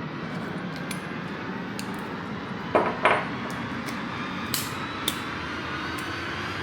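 Hard objects being handled on a hard surface: two loud knocks close together about three seconds in, then a couple of sharper clicks and a few faint ticks, over a steady background hiss.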